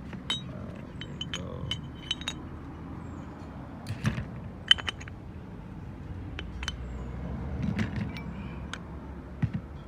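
Sharp metallic clicks and clinks of a steel tool and small parts against the aluminium housing and shaft of a brake vacuum pump as a shim is fitted and locked on the shaft, scattered irregularly over a steady low hum.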